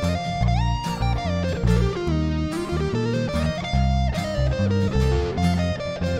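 Background music: an electric guitar plays a lead melody with sliding, bent notes over a bass line.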